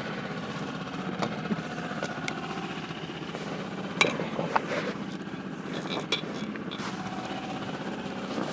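Small outboard motor running steadily, with a few short clicks and knocks from fishing gear being handled in the boat.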